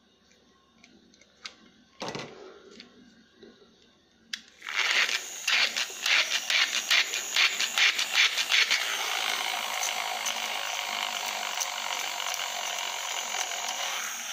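Zollic HP-55 hand-powered rotary shaver: a few light handling clicks and a knock, then about four and a half seconds in the shaver starts running with a loud whirring buzz. It has a rapid crackle for the first few seconds, then settles into a steadier whir.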